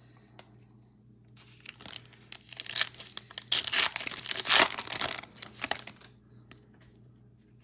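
Foil wrapper of a Topps Chrome trading-card pack crinkling and tearing as it is ripped open by hand, loudest about halfway through and dying away shortly before the end.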